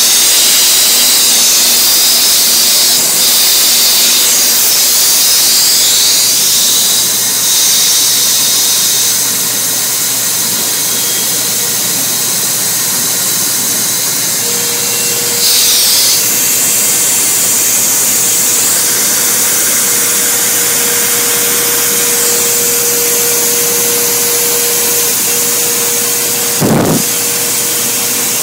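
KOMO CNC router running and cutting wood, a loud steady high hiss of spindle and cutter. A steady hum joins about halfway, and a single sharp knock comes near the end.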